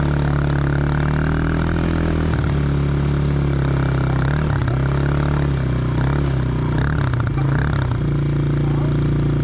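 An engine running steadily. Its pitch wavers and dips between about two and eight seconds in as the load or throttle changes, then settles back to a steady run.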